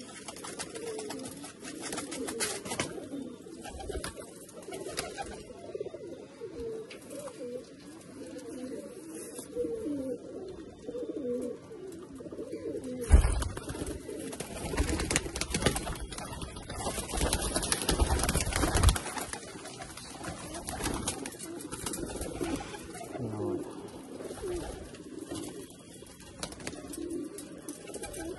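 Domestic Malwai pigeons cooing, many short low coos overlapping. About halfway through, several seconds of loud rustling and buffeting noise drown them out, starting with a sharp knock.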